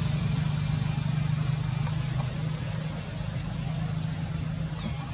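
A steady low mechanical hum under outdoor background noise, easing a little about halfway through, with a couple of faint high chirps.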